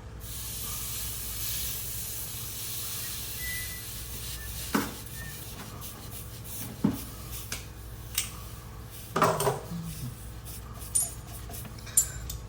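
Metal tools and fittings clinking and knocking, a handful of separate sharp knocks spread over several seconds. A steady hiss runs under the first few seconds.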